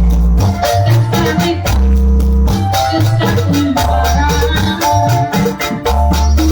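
Live Sundanese bajidoran (buleud) music played loud: a busy drum and rattle beat with a melody over heavy bass notes.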